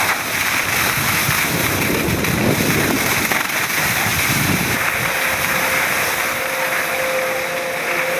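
Wind buffeting the microphone and skis sliding over snow during a downhill run, the low rumble easing off about five seconds in. A faint steady hum comes in near the end.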